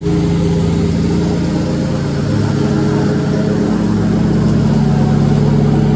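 Riding lawn mower engine running steadily and loudly.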